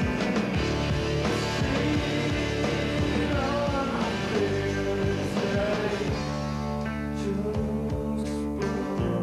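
Grunge rock band recording: electric guitars, bass and drums playing with a singing voice.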